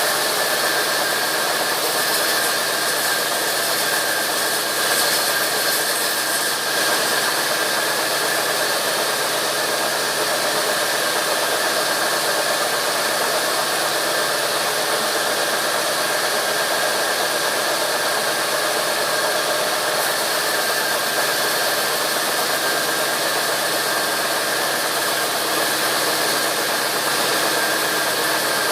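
Sawmill machinery running steadily: an even mechanical drone with a few constant whining tones over a dense hiss.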